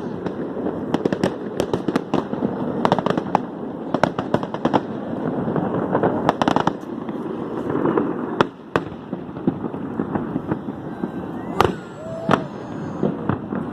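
Fireworks going off: a dense, continuous run of bangs and crackles, with a few louder single bangs standing out near the end.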